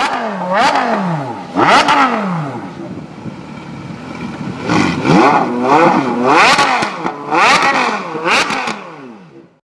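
An engine being revved in sharp throttle blips, the pitch shooting up and falling back each time: two spaced revs, then a quicker run of about five in the second half, fading out at the end.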